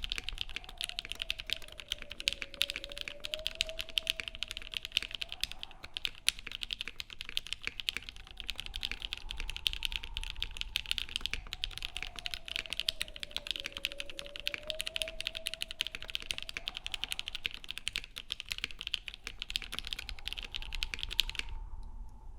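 Continuous fast typing on a custom KFE mechanical keyboard with lubed Giant Minks linear switches (Gateron Giant stems, Milky tops, Ink bottoms) on a polycarbonate half-plate, capped with GMK keycaps: a dense stream of key clacks that stops about a second before the end.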